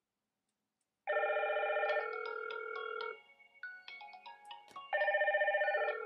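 Electronic call ringtone of a video intercom ringing for an incoming call from the doorbell's call button. It starts about a second in as a held multi-note chord of about two seconds, then a run of short notes, and the chord comes again near the end.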